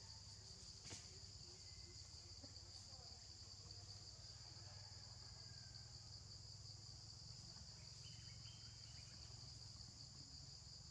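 Faint, steady, high-pitched chorus of insects such as crickets, with a single soft click about a second in.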